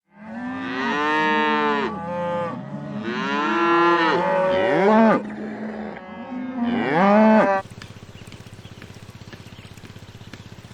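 A cow mooing in several long, drawn-out calls that bend in pitch. The calls stop about seven and a half seconds in, leaving a quieter steady low hum.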